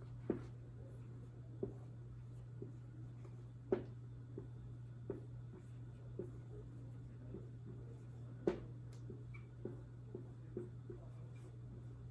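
Handwriting: faint, irregular scratchy strokes and small taps of a pen or marker on a writing surface, over a steady low hum.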